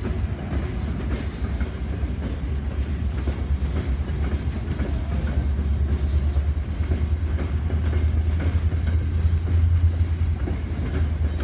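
A diesel-hauled freight train moving on the rails: a steady low locomotive engine rumble with the rolling clatter of railcars, the rumble swelling a little near the end.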